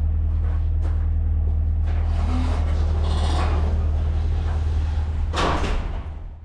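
Mk2 VW Polo GT's engine running steadily, back in running order after it had cut out from an empty petrol tank. A rushing noise swells over it about two seconds in, and the sound fades away near the end.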